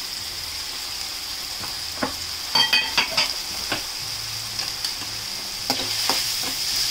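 Chopped onion, tomato, ginger, garlic and green chillies sizzling in hot oil in a metal kadai, stirred with a steel ladle that scrapes and clinks against the pan. The clinks are loudest about three seconds in.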